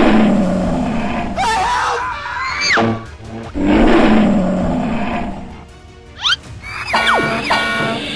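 Animal roars from a cartoon pack of tigers and mammoths over background music: two long roars about three and a half seconds apart, with shrill gliding cries between them and near the end.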